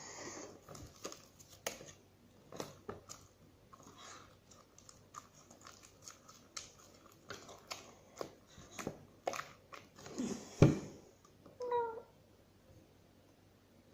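Homemade glue slime being stirred and worked: a run of irregular short sticky squelches and clicks that stops about twelve seconds in.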